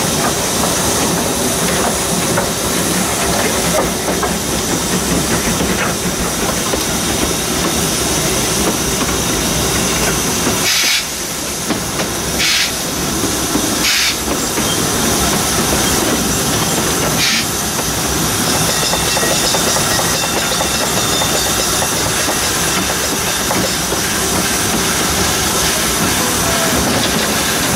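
Krauss steam tram locomotive running, with a steady hiss of steam and the rumble of the running gear heard from the cab. Four short, higher hisses come between about 11 and 17 seconds in.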